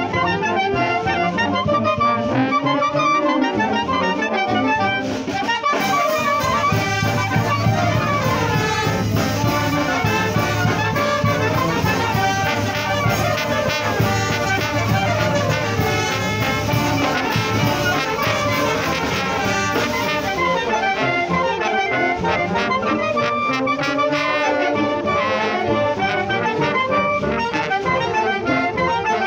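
Banda filarmónica wind band playing a tune together: clarinets, saxophones and sousaphones, with a fuller, brighter stretch in the middle.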